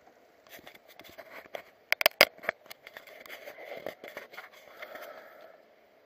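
Action camera being handled and turned: irregular clicks, scrapes and rubbing on its body, with two sharp knocks about two seconds in.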